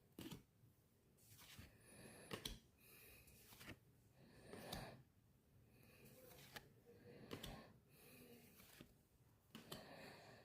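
Near silence with faint, irregular rustles and soft clicks of trading cards being handled and flipped through by hand.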